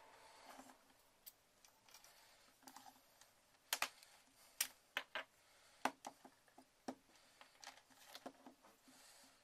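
Scattered sharp clicks and taps of a white plastic MacBook MagSafe power adapter and its cable being handled and set down on a cutting mat, with a cluster of the loudest clicks in the middle.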